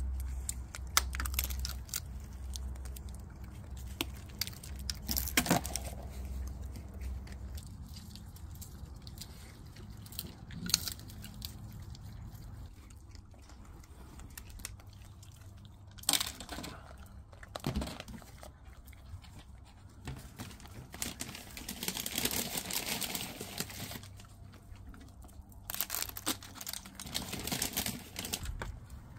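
Raccoons chewing and crunching food, with scattered sharp crunches, clicks and crinkling rustles.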